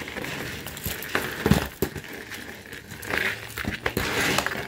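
Loose jewelry being handled and sorted: irregular small clicks and clinks with some rustling, and a sharper knock about one and a half seconds in.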